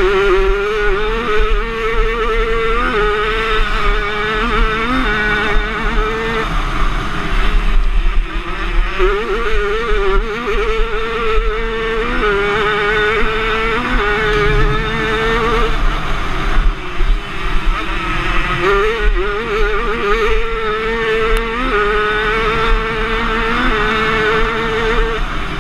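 Motocross motorcycle engine racing flat out, heard from on board the bike. Its pitch holds, then jumps and wavers several times as the rider works the throttle and gears.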